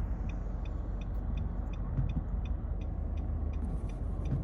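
Car turn signal ticking steadily, about two and a half clicks a second, heard inside the cabin over the low rumble of the car driving.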